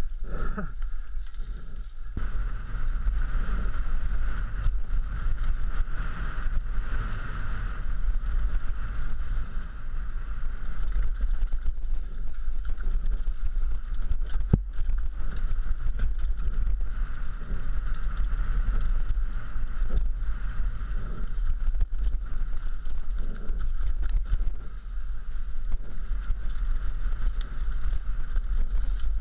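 Wind buffeting the microphone of a helmet-mounted camera over the rumble and rattle of a downhill mountain bike riding a rough dirt trail, with frequent small knocks from the bike over roots and rocks.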